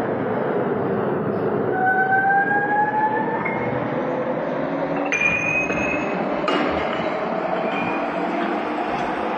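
Metal lathe running steadily, with metal-on-metal squeals that rise slowly in pitch, about two seconds in and again around five seconds, from the tool working the spinning steel part. A sharp metallic clink about six and a half seconds in.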